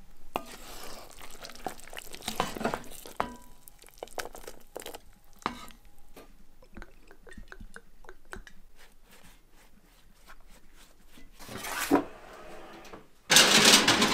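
Cookware being handled: scattered clinks and knocks of cast iron and enamelled pots, with a run of small ticks in the middle. Near the end comes a louder, rougher noise as a cast iron skillet goes into the gas oven.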